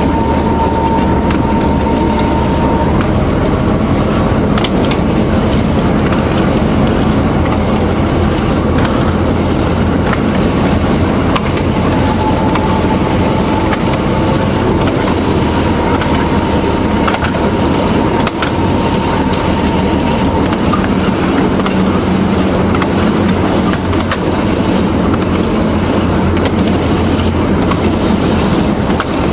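TU7A narrow-gauge diesel locomotive's V12 diesel running steadily under way, with wheels clicking over the rail joints. A high steady whine comes and goes, fading out about three seconds in and returning from about twelve to twenty seconds.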